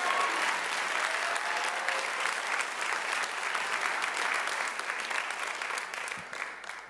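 Congregation applauding, with a voice or two calling out near the start. The clapping fades away toward the end.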